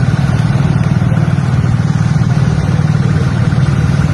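A motor vehicle engine running steadily close by, a constant low hum with a fast pulse.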